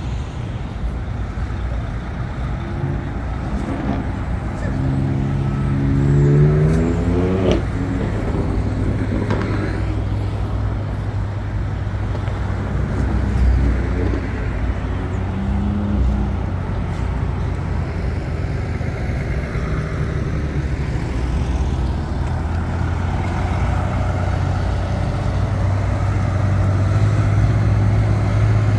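City street traffic: a steady low rumble of engines, with one vehicle's engine rising in pitch as it accelerates about five seconds in.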